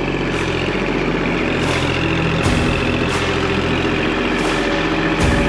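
Gas engine of a Norwood LumberMate LM29 portable bandsaw mill running steadily, with brief brighter swells in the high range now and then.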